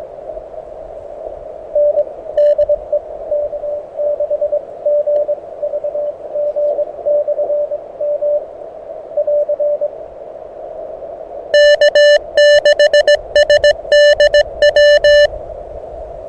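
Morse code on a Mountain Topper MTR4B portable transceiver, heard through its narrow CW filter. A weak station's dots and dashes come through band hiss, and about 11 s in a much louder, cleaner keyed sidetone takes over. The receiver is muted between the elements, so this is the operator's own sending. It stops about 15 s in.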